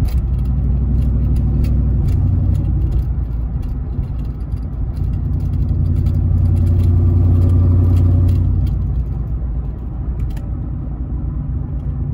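Inside the cab of a lowered pickup truck under way: steady engine and road drone that grows louder about six seconds in and eases off a couple of seconds later, with frequent sharp knocks and rattles. The owner puts the knocking down to the rear axle hitting the frame since the 2-inch lowering shackles went on, a bump he means to cure with a C-notch.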